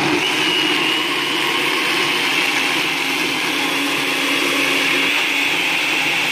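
Small electric chopper-blender running steadily at an even pitch, puréeing chopped tomatoes with half a cup of water into a smooth paste.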